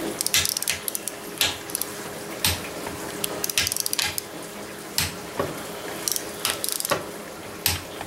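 Torque wrench set to 45 foot-pounds tightening cast-iron cover bolts: short bursts of rapid ratchet clicks as the handle swings back, with single sharp clicks in between.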